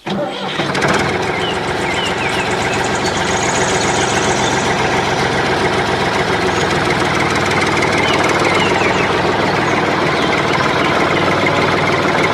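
An engine running steadily, coming in about half a second in, with faint bird chirps over it.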